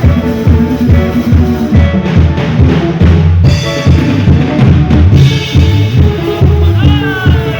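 A live band playing loud music at a sound check, with a steady kick-drum beat, bass and melodic instrument lines.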